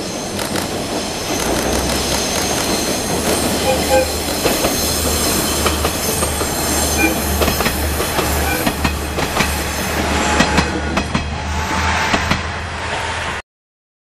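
Japanese diesel railcar train passing close by over a bridge: the low throb of its diesel engines with the wheels clacking over rail joints, growing a little louder as it nears. The sound cuts off suddenly near the end.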